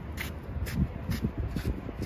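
Footsteps crunching on dry grass and leaves, about two steps a second, over a low rumble of wind on the microphone.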